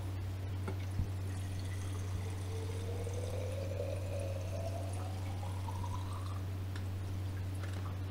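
Frankincense essential oil trickling from the stopcock of a glass separatory funnel into a small glass flask. The pitch of the filling rises steadily as the flask fills. There is a light click about a second in, and a steady low hum underneath.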